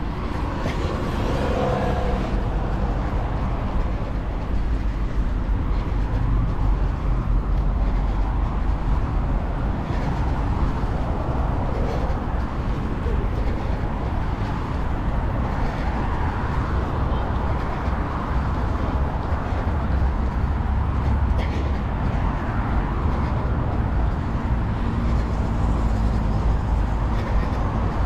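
Steady road traffic noise, a continuous rush of passing cars, with faint voices about a second or two in.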